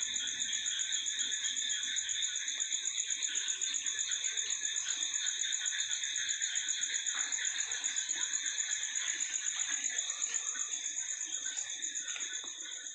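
Crickets chirping in a steady, rapid, evenly pulsing high trill that eases slightly near the end.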